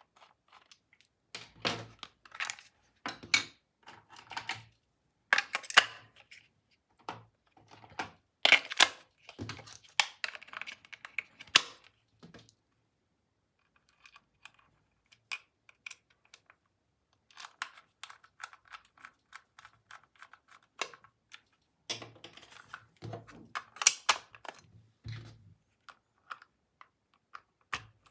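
Plastic toy tools and their packaging being handled: irregular clicks, taps and short rustles, with a quiet spell about halfway through.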